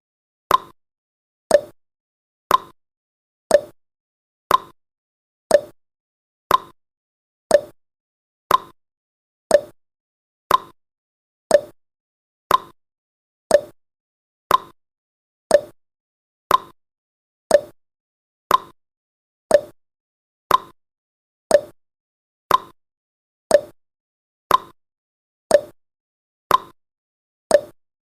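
Countdown timer's clock-tick sound effect: one sharp tick each second, alternating higher and lower like a tick-tock.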